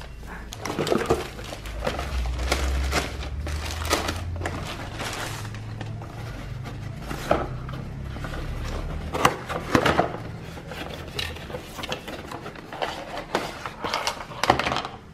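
Rustling and tapping of packaging as a cardboard parcel is handled and opened, then light clatters as a plastic bowl set with chopsticks, spoon and fork is taken out.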